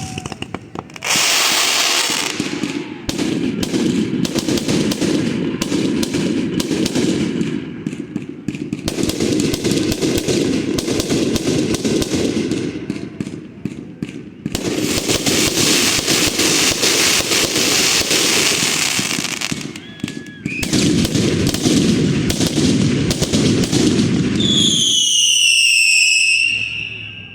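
Fireworks going off in a dense barrage of rapid popping and crackling that comes in long waves. Near the end a whistling firework gives one falling whistle.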